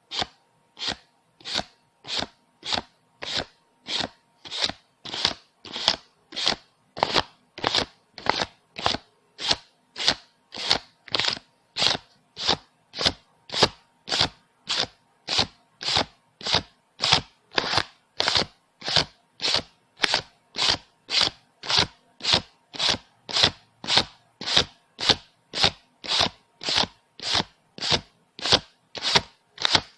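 Paper banknotes being counted, each bill flicked with a crisp papery snap, about two snaps a second in an even rhythm.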